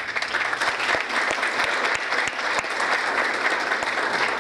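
Audience applauding: many hands clapping together in a dense, steady patter that dies away near the end.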